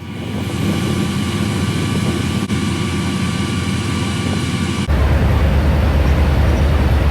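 Aircraft engine running steadily: a loud, even noise with a steady high whine over it. About five seconds in it cuts abruptly to a deeper rumble.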